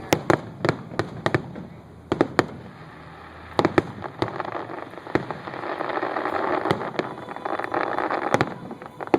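Aerial fireworks shells bursting: a quick run of sharp bangs in the first few seconds, then a dense, continuous crackle from about halfway through, with a few more bangs on top.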